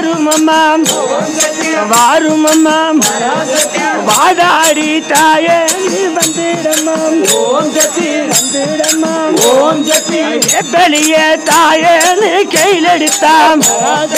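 Tamil Amman bhajanai devotional song: a group singing with long held notes over a steady, fast beat of jingle tambourines and hand drum.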